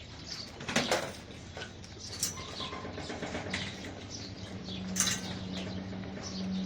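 Small birds chirping around the farm with short, repeated high calls, with a couple of sharp knocks, and a low steady hum that comes in about halfway.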